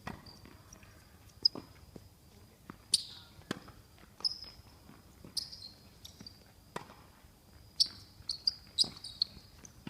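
A ball being struck and bouncing during a match: irregular sharp knocks, more closely bunched near the end. A faint steady high trill, like insects, runs behind them.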